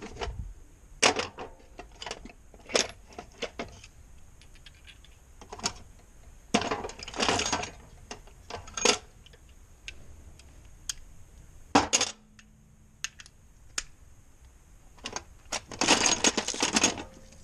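Metal hand tools clinking and rattling in irregular bursts as a 22 mm socket and an extension are picked out and fitted together.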